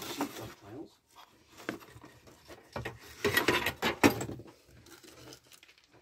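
Old paper cards and small objects being handled and shuffled: crinkling and rustling with scattered knocks, busiest and loudest about three to four seconds in.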